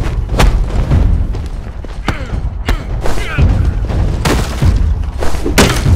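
Fight-scene sound effects: a series of sharp, heavy hits, about nine in six seconds at uneven spacing, over a deep booming music bed.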